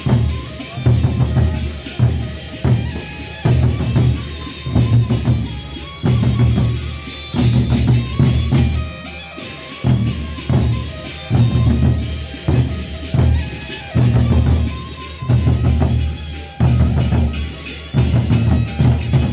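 A gendang beleq ensemble of large Sasak barrel drums beaten with sticks, playing a steady heavy rhythm with deep strokes about every three-quarters of a second. Higher held tones ring above the drumming.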